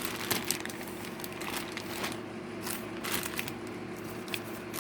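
Packaging crinkling and crackling as it is handled, in short irregular bursts.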